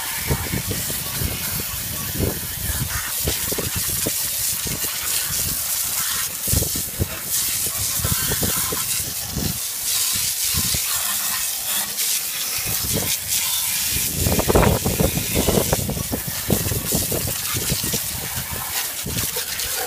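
Water spraying hard onto a lawn mower, a steady hiss with uneven spattering as the jet hits the metal deck.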